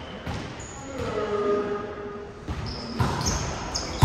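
Players' sneakers squeaking and feet thudding on a hard indoor court floor during play, in short irregular bursts.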